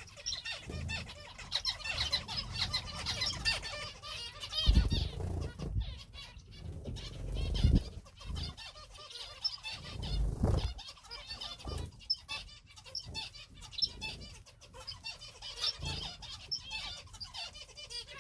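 Many small cage finches chirping and calling over one another without pause, with wings fluttering and a few low thumps, the loudest about five, seven and a half and ten seconds in.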